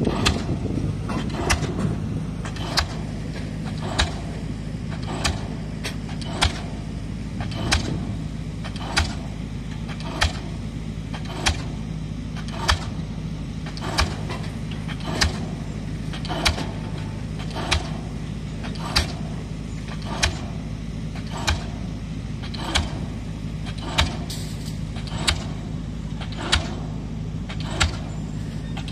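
Pile-driving rig's hammer striking a concrete pile, a sharp bang about every 1.2 seconds in a steady rhythm, over the steady drone of heavy diesel machinery.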